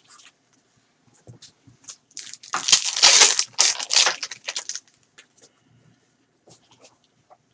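A foil baseball-card pack ripped open and its wrapper crumpled by gloved hands: a loud crinkling burst of about two seconds near the middle, with light rustles and taps of the cards before and after.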